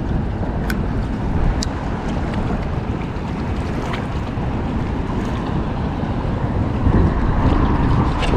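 Steady wind noise buffeting the microphone, with a few faint clicks.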